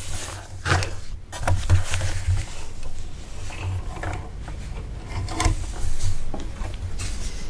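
Thick folded denim being handled at a sewing machine: irregular rustling with scattered clicks and knocks from the fabric and the machine's parts.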